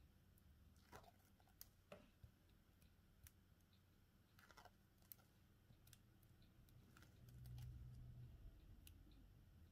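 Near silence with faint, scattered small clicks and taps, as from handling phone parts and tools during a battery replacement. A brief low rumble comes about three quarters of the way through.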